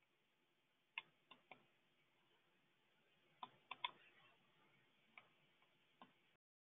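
Faint computer clicks, about eight scattered over low room hiss, some in quick pairs and threes, before the sound cuts off to dead silence near the end.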